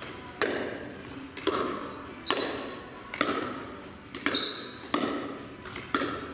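Pickleball rally: a hollow plastic ball struck back and forth by paddles, with sharp hollow pocks about once a second, two in quick succession near a second and a half in. Each hit rings briefly and echoes off the hard walls of a large gym.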